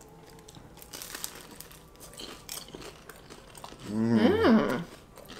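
Crunching as a crisp fried spring roll is bitten and chewed: a run of small sharp crackles. About four seconds in, a loud wordless vocal sound with pitch sliding up and down.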